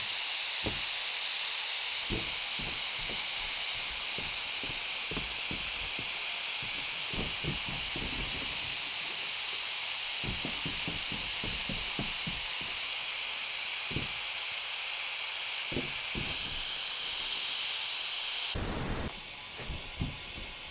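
Steady hiss of a recording in a quiet room, like a camera microphone's own noise turned up, with faint scattered clicks and knocks. Near the end comes a short burst of noise, and the hiss drops to a lower level after it.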